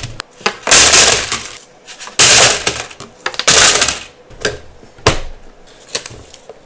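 Handfuls of pennies poured into a container in three rushes of jingling coins, then a few single coins clinking in.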